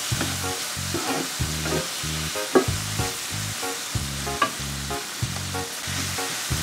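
Tofu cubes and bell peppers sizzling in a nonstick frying pan while being stirred with a wooden spatula, which gives short scraping taps against the pan.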